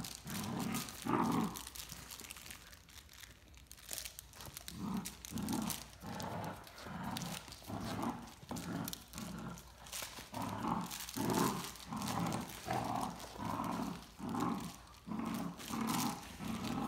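Great Danes growling in play during a tug-of-war over a toy: a run of short, low growls and grunts about three every two seconds, after a quieter couple of seconds near the start.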